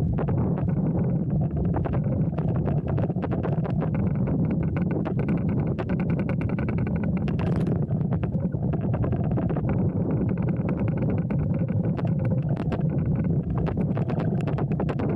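Motorboat engine running steadily under way at low speed, a constant low hum, with many small clicks and knocks over it.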